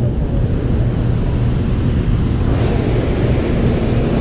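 Steady rush of water pouring through a dam's spillway gates, mixed with wind buffeting the microphone.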